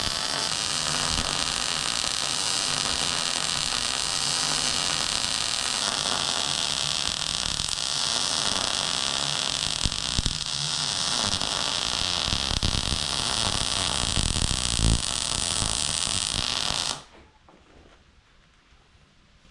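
Electric welding arc crackling and hissing steadily through a long continuous weld bead on steel. The arc cuts off abruptly near the end.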